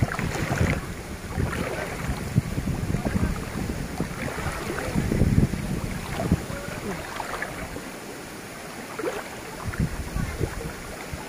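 Strong wind gusting and buffeting the microphone, with water lapping and splashing in floodwater. The gusts ease briefly about eight seconds in.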